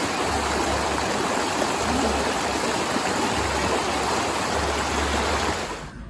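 Rushing water of a small waterfall cascading over rocks close by, a steady loud wash with low rumbles coming and going; it cuts off suddenly just before the end.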